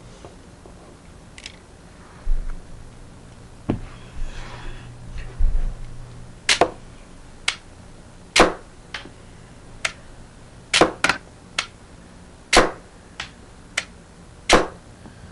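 Homemade rubber-band-powered Lego brick gun firing semi-automatically: five loud, sharp snaps about two seconds apart, with fainter clicks of the mechanism in between. A few low handling knocks come first.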